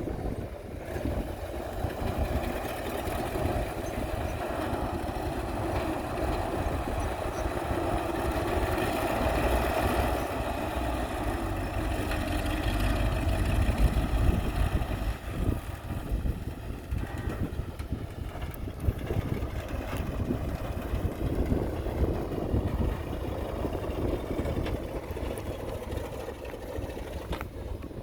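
Heavy diesel engine of a construction machine running, building louder toward the middle and then easing off, with a few short knocks.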